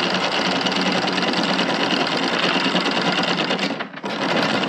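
Boat's anchor windlass running, hauling the anchor chain in over the bow roller with a fast steady clatter of links. It stops briefly near the end and starts again as the anchor nears the surface.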